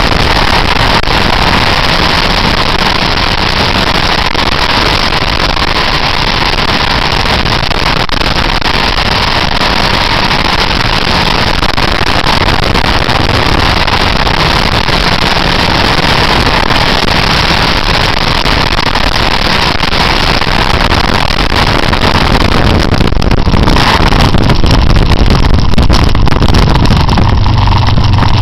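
Motorcycle ridden through bends, heard from an onboard camera: a loud, steady rush of wind over the microphone with the engine running underneath. Near the end the wind noise drops and a low engine note comes through more plainly.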